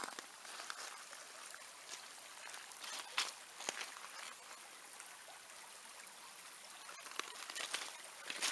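Small forest stream running in the rain: a faint, steady hiss of flowing water, with scattered light ticks and taps throughout.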